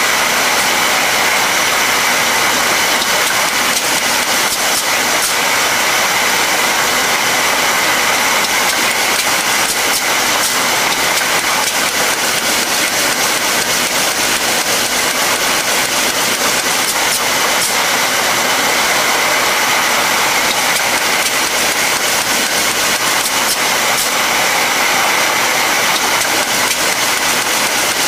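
Gernep roll-fed labelling machine running steadily: an even mechanical whir with fine rapid ticking as PET bottles pass through.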